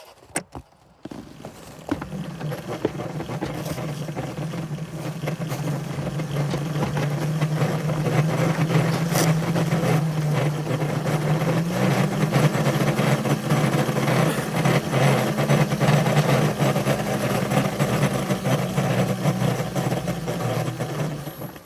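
A small railroad locomotive running steadily under load, pushing through snow. It starts about two seconds in, rises a step in pitch about halfway through, and stops just before the end.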